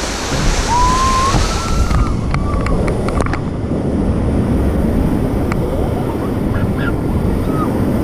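Whitewater rapid rushing and splashing around an inflatable raft, with wind buffeting the microphone. A few short high, gliding yells come in the first couple of seconds, and scattered knocks follow.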